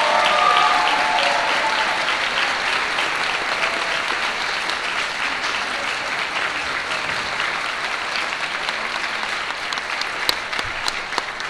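Audience applauding, loudest at the start and easing off slightly, with a few sharper single claps near the end.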